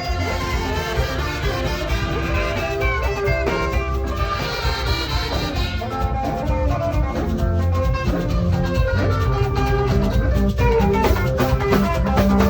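Upbeat band music with a saxophone playing the melody over drums and a backing track.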